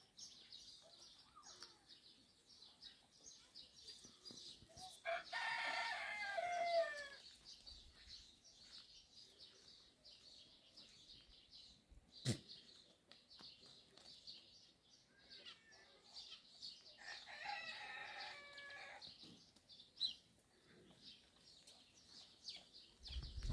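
A rooster crows twice, once about five seconds in and again about seventeen seconds in, each crow lasting about two seconds, over steady high chirping of small birds. A single sharp click comes near the middle.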